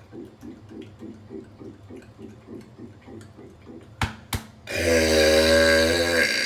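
A long, loud burp lasting about a second and a half, near the end, with a steady pitch and a buzzy tone. Just before it come two sharp clicks, and under the first part runs a faint quick pulsing of about four a second.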